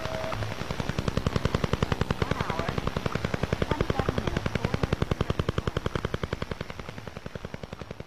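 Russian Woodpecker signal from the Soviet Duga over-the-horizon radar as heard on a shortwave receiver: a rapid, even tapping of about ten pulses a second, growing fainter near the end. A steady whistle cuts off just after the start.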